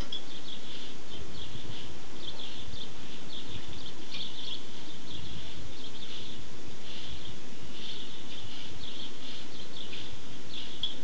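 Small birds chirping, many short high chirps in quick overlapping runs, over a low steady rumble.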